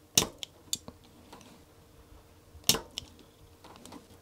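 Spring-loaded desoldering pump (solder sucker) firing twice, two sharp snaps about two and a half seconds apart, each followed by a few lighter clicks, as it sucks molten solder from a transistor's leads on a circuit board.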